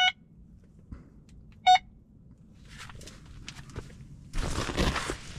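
Two single bleeps from a carp fishing bite alarm, about a second and a half apart, each a short pitched tone. Near the end a louder rustling noise starts.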